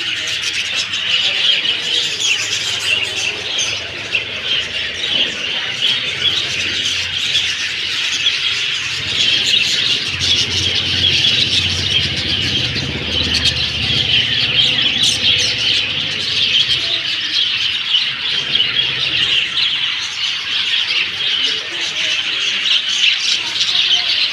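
A flock of birds chirping together in a dense, continuous chorus of overlapping short calls. A low rumble runs underneath for several seconds in the middle.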